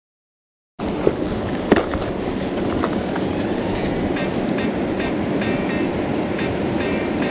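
Steady rush of a fast-flowing river, starting suddenly about a second in, with a couple of sharp clicks from a lure being handled over a plastic tackle box.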